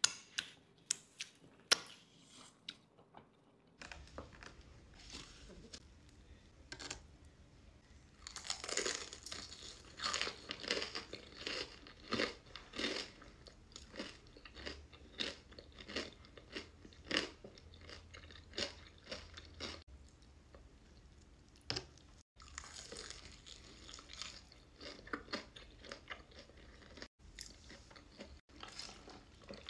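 Close-miked eating: a few wet smacks and chews at first, then, after a cut about four seconds in, steady crunching and chewing of a breaded fried chicken tender.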